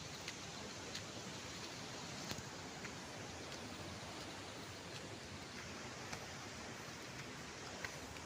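Steady rushing of a nearby waterfall, an even hiss with a few faint ticks over it.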